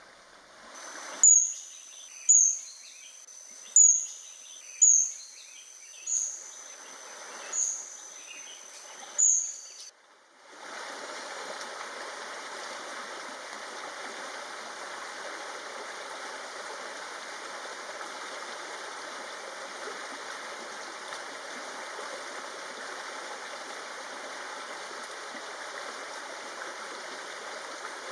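Black-backed kingfisher (oriental dwarf kingfisher) calling: about seven sharp, high single notes, roughly one a second, over a thin steady high tone. About ten seconds in, this cuts off suddenly and gives way to the steady rush of a stream.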